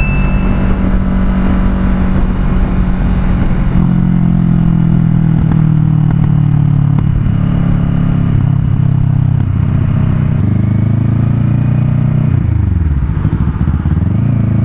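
2014 Kawasaki Ninja 650's parallel-twin engine running steadily at highway cruising speed, with wind rush on the helmet-mounted mic. Near the end the engine note drops sharply and climbs back again.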